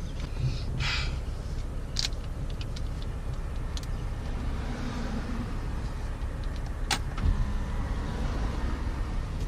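Car engine idling, heard from inside the cabin as a steady low rumble, with a couple of sharp clicks. A faint steady tone starts about seven seconds in.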